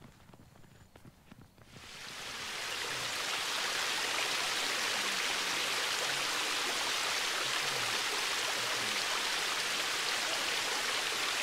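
Steady rush of running water, fading in about two seconds in and then holding even.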